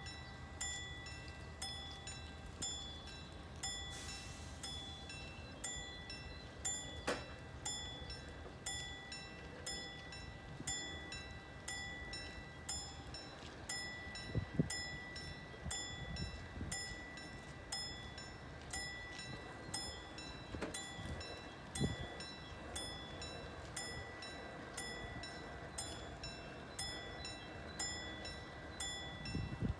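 Level crossing warning bell striking steadily, about three strikes every two seconds, each with a short ringing tone. It sounds while the red light shows and the half-barriers lower, warning that the crossing is closing for an approaching train.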